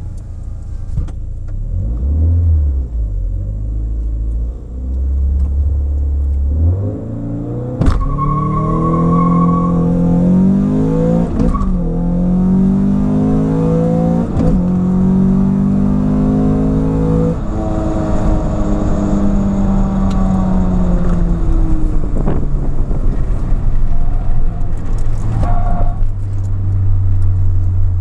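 Peugeot 306 GTi-6's 2.0-litre 16-valve four-cylinder engine, heard from inside the cabin during a drag launch. It rumbles low at the start line, then the car launches about eight seconds in and the engine revs up hard through the gears, with a drop in pitch at each upshift. After that the driver lifts off and the engine note falls away to a low rumble as the car coasts down.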